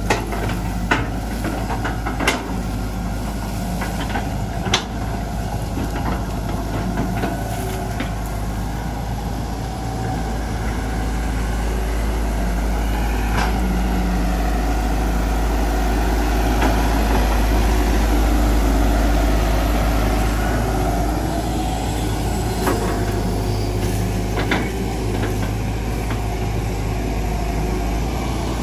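Hitachi EX120 hydraulic excavator's diesel engine running steadily under working load, getting louder midway. Scattered sharp knocks and clanks come from the bucket and tracks as it scrapes mud and moves.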